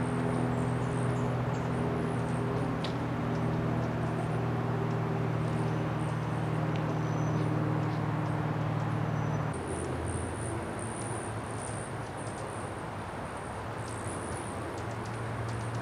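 Outdoor background dominated by a steady low mechanical hum, which stops abruptly about ten seconds in at a cut. After it comes a quieter background with a thin, high steady tone and scattered small clicks.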